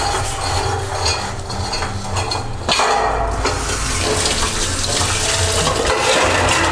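Kitchen tap running into a steel sink as dishes are washed, with clinks of metal pots and bowls against the sink.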